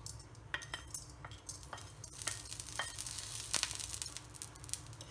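Dry lentils and whole spices (urad dal, dal, cumin seeds, peppercorns, fenugreek) scraped off a plate with a wooden spatula and dropping into a metal kadai: scattered sharp clicks and ticks of seeds and grains hitting the pan and the spatula knocking on the plate.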